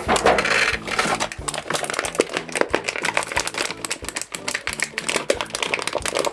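Background music with a repeating bass pattern, over many quick clicks and rattles of hard plastic being handled.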